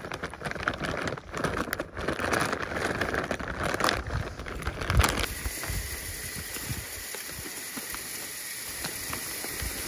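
Plastic sack of vermiculite crinkling and crackling as it is handled. Then, after about five seconds, loose vermiculite granules pour from the tipped sack down the chimney flue with a steady hiss as they go in as flue insulation.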